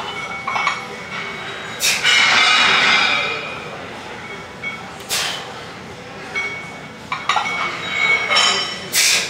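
Barbell loaded with York iron plates being pressed overhead for repetitions: three sharp bursts a few seconds apart. After the first comes about a second of loud rattling noise, and faint metallic ringing of the plates sounds between the bursts.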